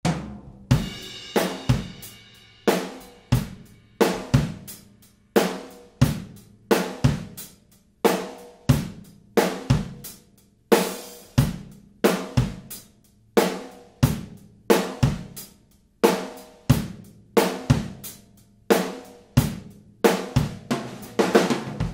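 Drum kit playing a steady beat of kick, snare and cymbals, heard only through a mid-side stereo pair of room microphones (a Neumann KM184 as the mid, a figure-eight mic as the side) with no close mics, so the kit sounds roomy.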